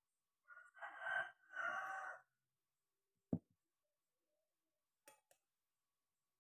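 Two short pitched calls, each under a second, near the start, then a single sharp knock, and near the end two light clicks of a spoon against a plate.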